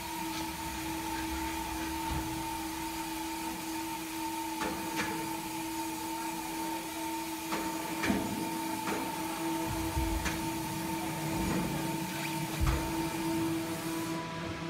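Electric hoist of a gantry crane running with a steady whine as it lifts a large log, with scattered knocks and clicks. The whine stops near the end.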